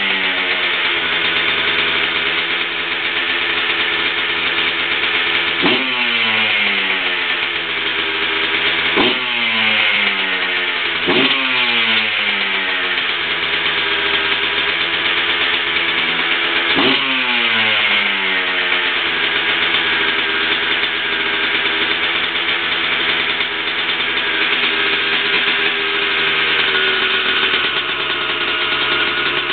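Honda CR125R's 125 cc two-stroke single-cylinder engine running, its throttle blipped four times so the revs jump up sharply and glide back down each time, then idling steadily for about the last ten seconds.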